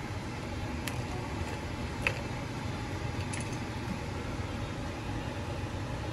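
Spiced chai boiling hard in a small aluminium saucepan: a steady bubbling rumble, with a few light clicks.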